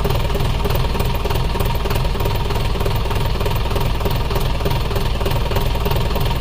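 Jeep engine idling with a steady low rumble.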